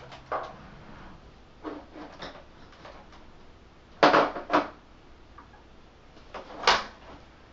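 Hard plastic knocks and clacks from the base of a Westinghouse Unplugged cordless vacuum being handled and pried at by hand during disassembly. A few separate knocks, the loudest a quick pair about four seconds in and another near the end.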